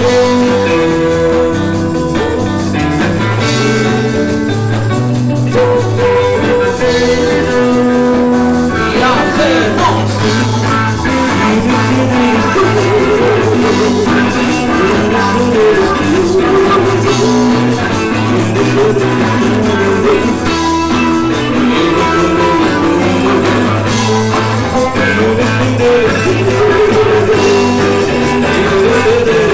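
Rock band playing live with guitars, bass and drums. Steady chords for the first third, then a wavering, bending lead line over the bass and drums.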